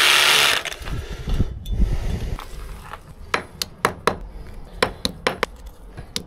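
Hammer drill boring into a sandstone wall, cutting off just under a second in. After a pause with some low handling noise, about ten light, sharp metallic clinks come irregularly over the last three seconds, from a small hammer tapping at the stone.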